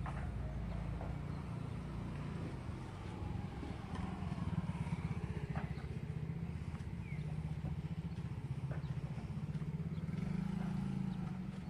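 Small motorcycle engine running at low speed, a steady low putter that gets a little louder about four seconds in and again near the end.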